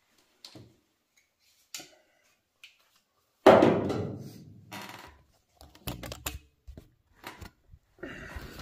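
Handling knocks and clatter: scattered sharp knocks, with one loud knock about three and a half seconds in that dies away over a second or so, then a quick run of knocks near six seconds and more near the end.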